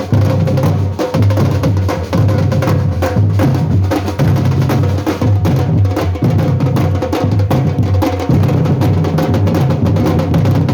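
Drums played in a steady, dense rhythm, with deep low strokes and sharp clacks.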